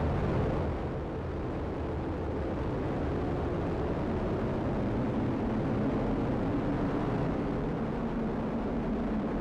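Atlas V rocket's RD-180 main engine and solid rocket boosters firing during liftoff and early ascent: a steady low rumble with no breaks.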